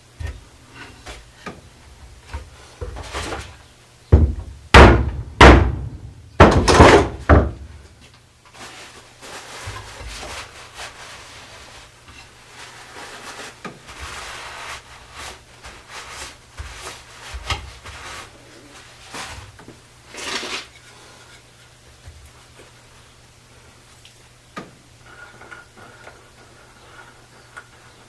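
Wooden chair parts knocked together during a glue-up: about four heavy knocks a few seconds in, then lighter taps and the rubbing and shuffling of wood being handled.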